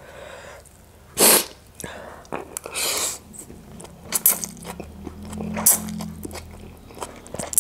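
Close-miked eating of chicken keema noodles: several loud slurps with wet chewing and small mouth clicks in between.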